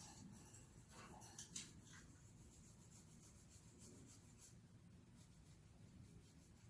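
Near silence: faint scratching with a few soft clicks, the clearest about a second and a half in.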